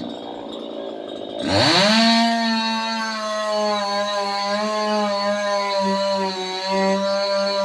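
Two-stroke chainsaw revving up sharply about a second and a half in, then running at high speed with small dips in pitch.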